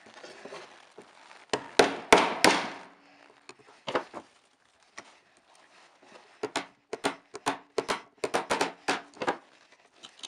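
Small screwdriver prying and picking at the case seam of a Mitsubishi CM300DY-24H IGBT module, making sharp clicks and cracks. A cluster of loud ones comes about two seconds in, then a quick irregular run of about a dozen clicks near the end.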